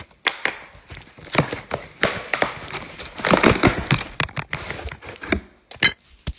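Packaging of a sealed trading-card display box being crinkled and torn open by hand: an irregular run of crackles, rustles and snaps, busiest about three seconds in.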